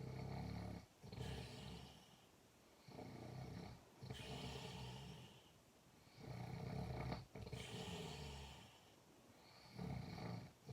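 A sleeper snoring in a steady rhythm. Each breath is a low, pitched snore in two parts, in and then out, and the breaths come about every three seconds. The snore is likened to a tiger's sound.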